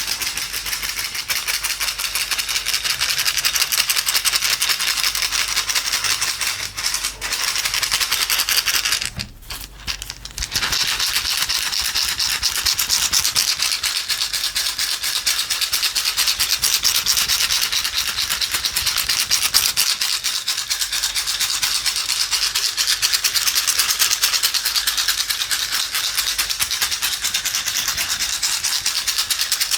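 Small dry objects shaken fast, making a dense, hissing rattle of rapid fine ticks. It drops out for about a second and a half roughly nine seconds in, then carries on.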